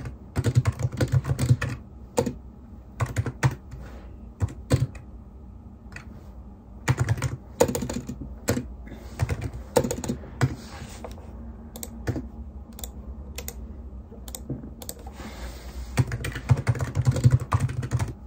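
Typing on a computer keyboard: quick runs of key clicks near the start and again near the end, with sparser keystrokes and short pauses in between.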